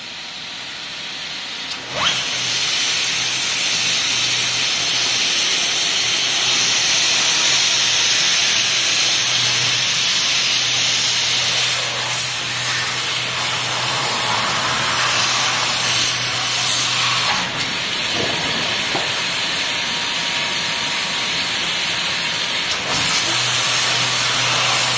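Hot air welding machine running on PVC fabric: a steady rushing hiss of the hot air blower, with a low machine hum that starts with a click about two seconds in, drops out about halfway, and comes back near the end.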